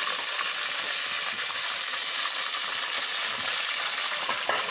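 Onions and garlic frying in hot oil in a pot, a loud, steady sizzle. A short knock is heard near the end.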